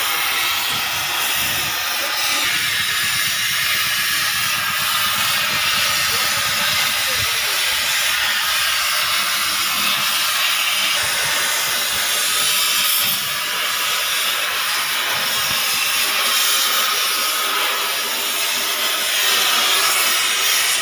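Gas cutting torch giving a loud, steady hiss.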